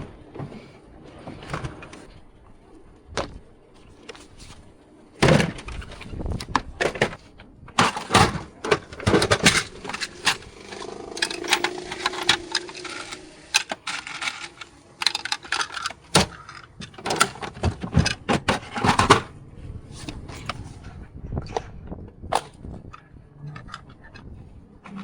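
Irregular clicks, knocks and rattles of hand work on ceiling fan parts, with a busier stretch of knocking and scraping through the middle.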